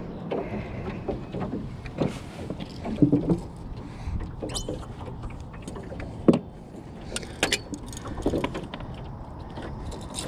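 Handling noises in a small boat: scattered knocks, scrapes and rustles as a landing net holding a largemouth bass is brought aboard and worked on the boat floor, with sharp knocks about three and about six seconds in.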